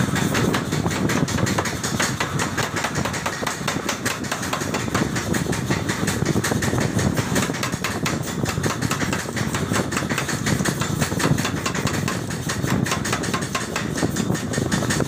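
Power hammer pounding red-hot steel in rapid, evenly spaced blows, its motor running underneath.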